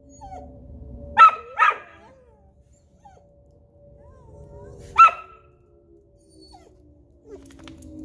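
Dog barking sharply three times, twice in quick succession about a second in and once more near the middle, with a few faint short whines in between. Beneath it, a tornado siren's long steady tone slowly falls in pitch.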